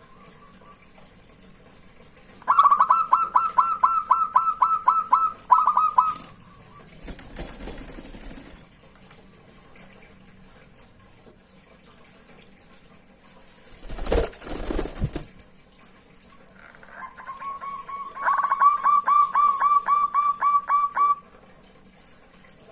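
Zebra dove (perkutut) singing: two bouts of quick, staccato cooing notes, each a run of a dozen or so evenly spaced notes. A brief rustle, like wing flutter, comes between the bouts.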